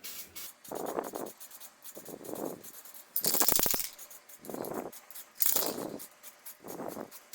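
Aerosol can of copper spray paint sprayed in several short hissing bursts. The loudest is a rattly hiss a little after three seconds in, with another loud hiss about five and a half seconds in.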